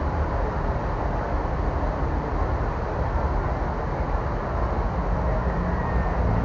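Steady outdoor din of a large crowd, with no single sound standing out.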